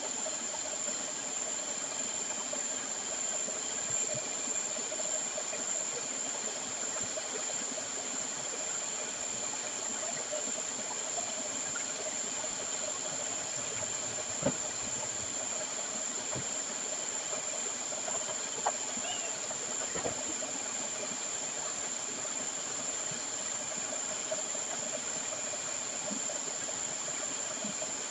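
Submersible slurry pumps running in a sump pit: a steady hiss with a constant high whine and a lower hum. A few brief sharp ticks sound over it.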